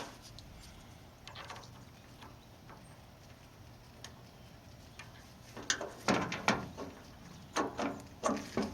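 A quiet stretch, then from about halfway through a run of short clicks and knocks as small parts and tools are handled during hand work on a throttle body.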